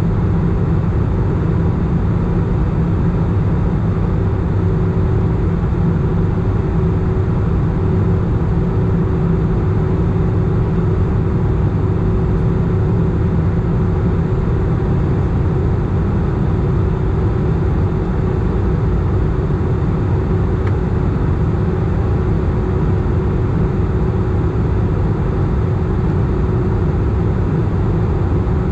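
Steady cabin noise inside an Airbus A319 in flight during its descent: a low, even rumble of engine and airflow with a thin steady hum above it.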